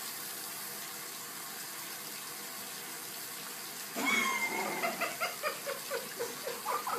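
Steady faint hiss, then about four seconds in a sudden cough as a mouthful of ground cinnamon powder is blown out in a cloud, followed by rhythmic, pulsing laughter.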